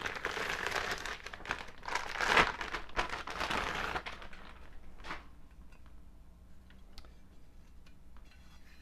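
Packaging crinkling and rustling as a rifle upper receiver is pulled out of it, loudest about two seconds in. After about four seconds it dies down to quieter handling with a few light clicks.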